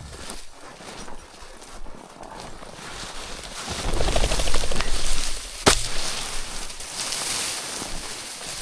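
A flurry of rustling and rapid fluttering for about a second and a half, then a single sharp shotgun shot a little past halfway, with a brief ringing tail.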